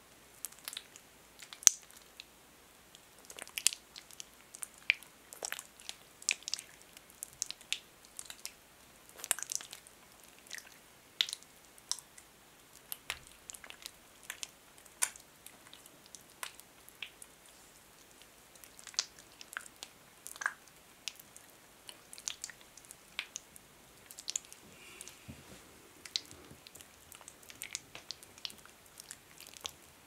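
Hands rubbing thick hand lotion together close to the microphone. The skin presses and pulls apart through the cream, giving irregular sticky, wet clicks and crackles with short quiet gaps.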